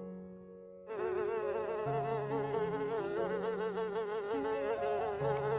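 A flying insect buzzing, starting about a second in; its pitch wobbles rapidly up and down. Soft background music with steady held notes plays underneath.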